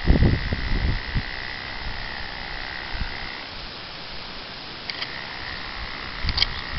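Small electric hair clippers running with a thin, steady whine. The whine stops about three and a half seconds in and starts again near five seconds. Low thumps come in the first second, and a few light clicks come near the end.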